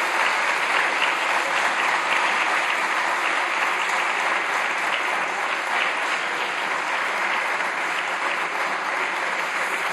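Steady applause from a group of seated parliamentary deputies clapping, easing slightly near the end.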